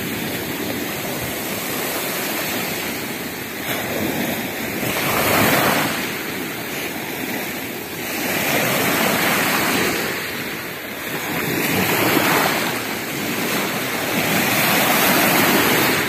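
Sea surf breaking and washing up a pebble beach. The rush of water swells and fades every three to four seconds as each wave comes in.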